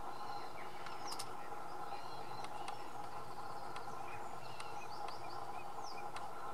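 Many short chirps and calls from small birds in a reed-bed fen, with a few sharp ticks, over a steady hum.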